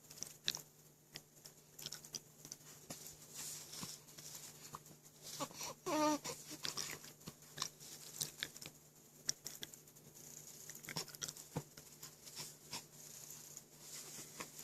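Faint scattered clicks and rustles, with one short vocal sound from the baby, falling in pitch, about six seconds in.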